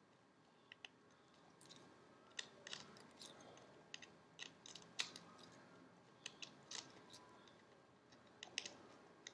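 Faint, irregular small clicks and ticks of fingers and a small tool working parts on the opened Samsung Galaxy S4's circuit board during reassembly, the sharpest click about five seconds in.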